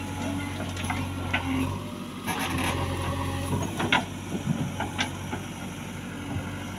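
JCB 3DX backhoe loader's diesel engine running steadily while the backhoe works, with a few short metallic knocks from the arm and bucket.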